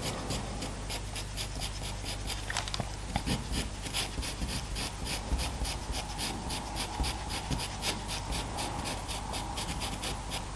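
Faber-Castell Pitt pastel pencil scratching across Pastelmat paper in short, quick strokes, about three or four a second, laying in directional fur detail.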